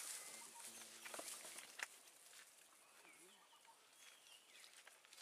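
Near silence: faint outdoor ambience with a steady high hiss, a few faint bird chirps around the middle and a couple of soft clicks about a second in.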